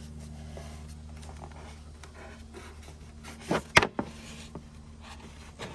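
Two sharp knocks about three and a half seconds in, and a lighter one near the end, as the mitered plywood panels of a shelf box are handled during a test fit, over a steady low hum.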